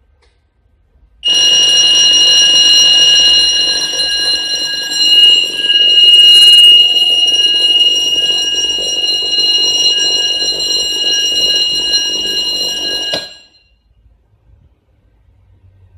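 Fire alarm system's electronic alarm sounding a steady high-pitched tone. It starts about a second in, holds for about twelve seconds and cuts off suddenly.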